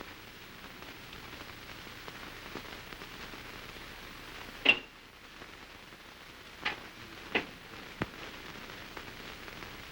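Steady hiss and faint crackle of an early-1930s sound-film optical soundtrack, with one sharp click about halfway through and a few smaller clicks near the end.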